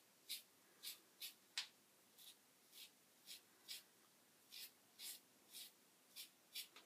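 Merkur Slant safety razor with a carbon steel blade scraping through stubble in short strokes, about two a second.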